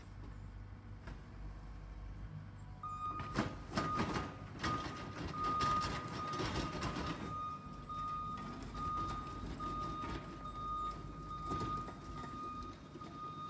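The engine of the machine driving a power rake runs steadily. About three seconds in, rattling and scraping of the rake working rough ground starts and lasts a few seconds. From the same point a high, steady beeping tone sounds, like a reversing alarm, broken by short gaps.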